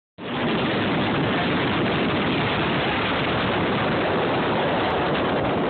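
Steady rush of wind and water noise aboard a fast-moving motorboat, cutting in abruptly just after the start.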